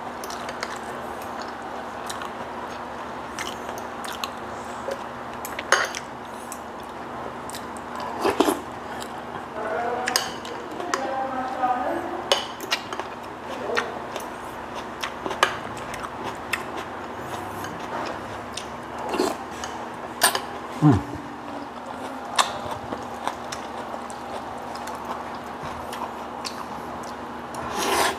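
Fork and spoon clinking and tapping against a glass bowl as noodles are stirred and eaten, scattered single clicks over a steady low hum. A loud slurp of noodles starts right at the end.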